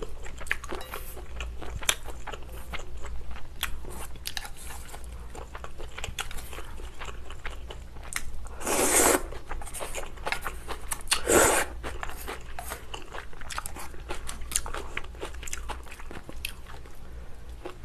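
Close-miked eating of spicy shrimp noodle soup: steady chewing with many small clicks. There are two loud slurps of noodles, one about halfway through and another a couple of seconds later.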